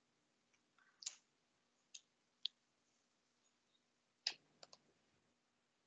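Near silence broken by a few short, faint clicks, the loudest about four seconds in, over a faint steady hum.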